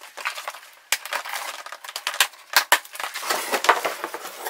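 Cardboard box flaps being pulled open and handled: a run of crackling with sharp snaps of the cardboard, the loudest of them between about two and three seconds in.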